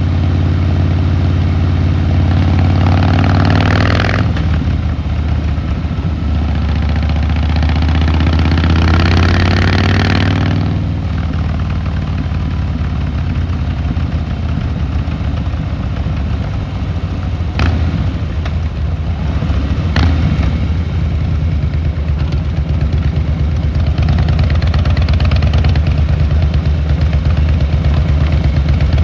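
Harley-Davidson Fat Boy Lo V-twin motorcycle engine and exhaust under way: it pulls up in pitch twice with the throttle open, drops off each time the throttle closes, then runs lower and steady. Two sharp clicks come partway through the steady stretch.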